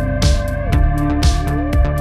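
Electronic background music with a steady drum-machine beat, sustained synth tones and a sliding synth line.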